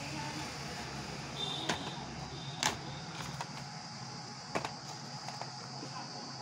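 Plastic audio cassette cases in cellophane wrap being handled and picked from a pile: a few sharp clicks and knocks, the loudest about halfway, over a steady background hum.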